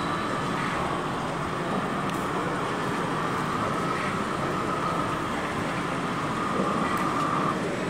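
Steady background din of a busy exhibition hall, with a thin steady whine that rises slightly in pitch about two seconds in and stops near the end.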